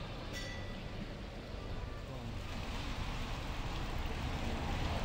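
Steady wet-weather city ambience at night: a continuous wash of noise that grows a little brighter and louder about halfway through.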